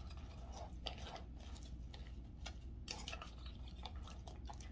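Chicken salad of lettuce, croutons and chicken being stirred, with faint, scattered crunchy rustles and light clicks.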